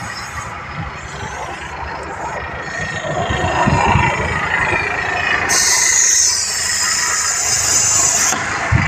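Air hissing out of a tractor's rear tyre through the valve stem as it is pressed. The hiss starts suddenly a little past halfway and cuts off near the end. Underneath, the John Deere 5050D's diesel engine is running. The tyre is being let down to cut wheel slip in hard, dry ground.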